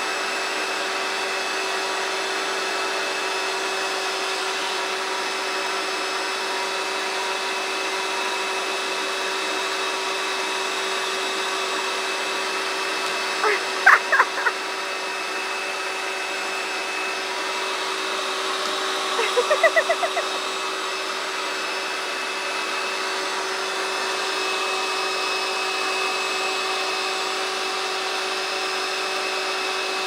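Vacuum cleaner with a hose nozzle running steadily, a constant whine at an even level. Two short rising calls break in a little before and just after the middle.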